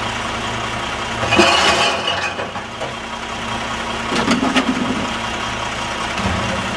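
Diesel engine of a Dempster Recycle One recycling truck on a WhiteGMC Xpeditor chassis idling steadily. About a second and a half in, recyclables clatter as a bin is emptied into the side hopper, and around four seconds in there are a few knocks as plastic bins are set down.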